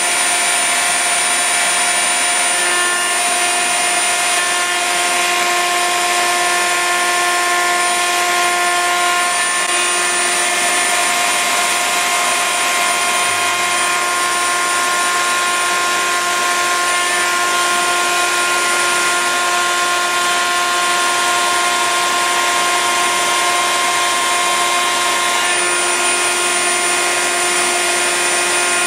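Table-mounted router with a flush-trim bit running at full speed together with its dust-extraction vacuum, while a timber cap-rail blank is fed past the bit to trim it to its template. A loud, steady whine that holds its pitch throughout.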